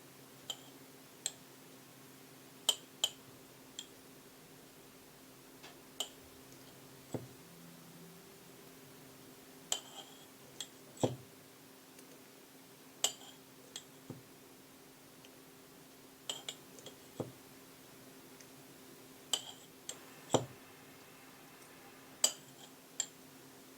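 Light, irregular clinks and taps of kitchen utensils against dishware, roughly one a second, some with a short glassy ring, over a low steady hum.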